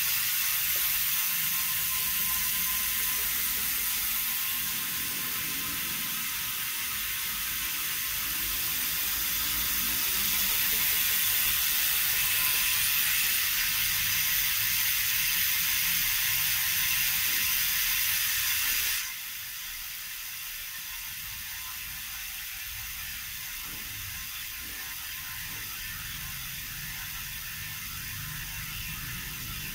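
Rear freehub of a Foxrace aero wheel clicking in a fast, steady buzz as the wheel spins freely. The buzz drops suddenly to a quieter level about two-thirds of the way through.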